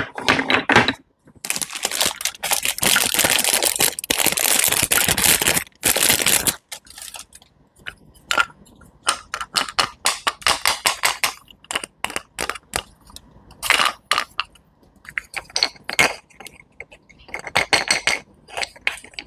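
Close-up crunching and crackling as something is crushed and handled: a dense stretch of crackle for about five seconds, then many short crunchy clicks and snaps in quick clusters.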